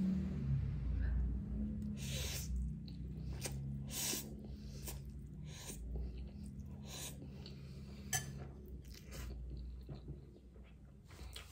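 Close-up chewing and slurping of ramen noodles from a fork, with wet mouth clicks at irregular intervals.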